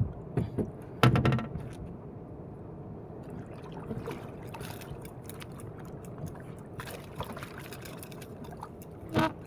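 Water splashing and trickling, with a few knocks near the start and a louder clatter about a second in.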